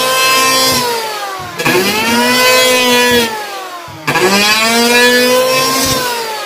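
Lotus 580 W electric hand planer planing a hard balayong wood beam: a high, pitched motor whine that holds steady, then falls in pitch and fades, then picks straight back up to full speed, about every two and a half seconds, three times.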